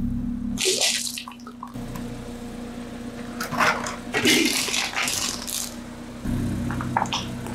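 A car tyre rolling slowly over objects and crushing them, over the steady hum of the idling engine. A short crunch of a wrapped lollipop comes about a second in. Around the middle there is a longer, louder run of cracking and splintering as a piggy bank breaks apart under the wheel.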